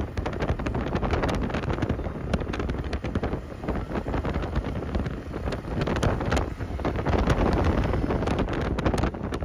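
Wind buffeting the microphone of a moving vehicle, a steady low rumble broken by frequent crackling pops, with the vehicle's running noise underneath.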